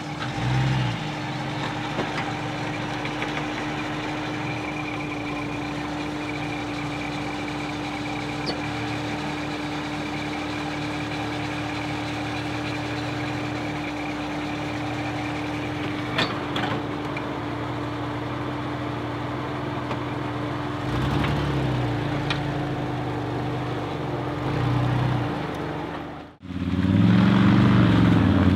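Engine of a modified off-road 4x4 running at low revs while crawling, rising and falling in a few short revs near the end. It cuts off suddenly and a louder sound takes over.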